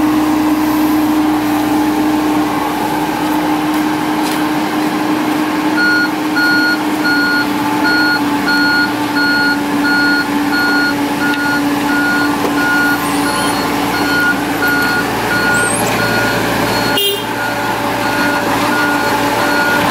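Heavy diesel machinery engine running steadily, with a reversing/travel alarm starting about six seconds in and beeping steadily at a bit under two beeps a second.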